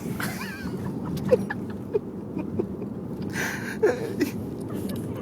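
A sleeping pet snoring, with about five short squeaky whistles and one louder breath about three and a half seconds in.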